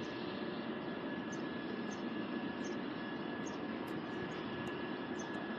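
A steady mechanical drone with a thin high whine held on one note, its level unchanging throughout; faint short high chirps come now and then.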